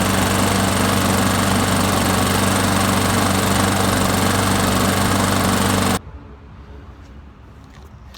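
Freshly tuned-up lawnmower's small gasoline engine running steadily at speed. It cuts off suddenly about six seconds in.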